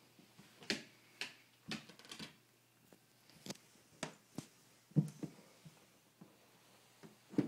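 Irregular sharp clicks and taps, about a dozen, as a Miniature Schnauzer puppy plays, the loudest about five seconds in.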